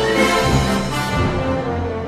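Intro theme music with long held notes.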